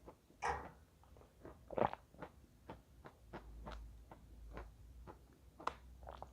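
Close-up bites into chalk, then chewing, each crunch a crisp crack. Two loud bites come about half a second and two seconds in, followed by a steady run of smaller chewing crunches a little over two a second, with another sharp crunch near the end.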